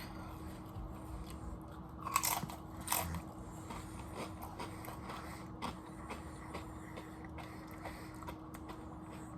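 Close-up crunching and chewing of a crisp snack chip with dip, two louder crunches about two and three seconds in, then quieter chewing.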